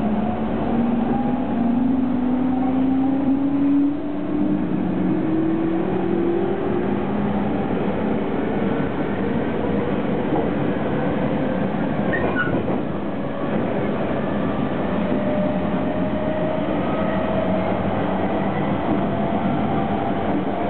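JR 209 series electric train pulling away from a station, heard from inside the car: the VVVF inverter traction motors whine in tones that climb steadily in pitch as it picks up speed, over the rumble of wheels on rail.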